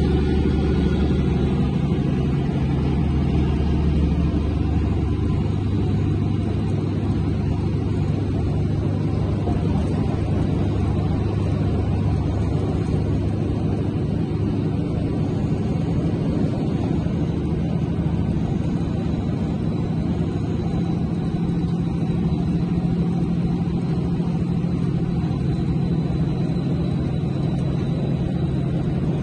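Steady low rumble of highway driving, a mix of tyre and engine noise heard from a car moving at speed in traffic.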